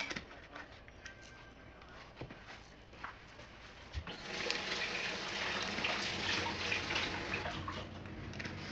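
A few light kitchen clicks and knocks, then about four seconds in a kitchen tap is turned on and water runs steadily into the sink.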